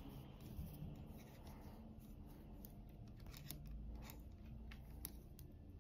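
Faint clicking and rubbing of steel-tipped circular knitting needles and yarn while purling a row, with scattered small ticks.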